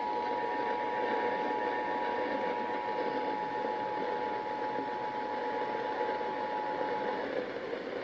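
Emergency Alert System two-tone attention signal, 853 and 960 Hz sounded together, held steady over a hiss of broadcast static. It cuts off about seven seconds in, just before the alert's voice message.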